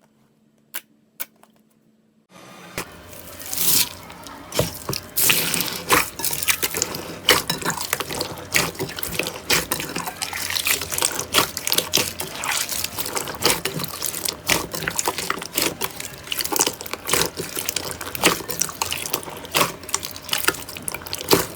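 Slime being squished and kneaded by hand, a dense run of wet crackling and popping that starts about two seconds in after a few sharp clicks.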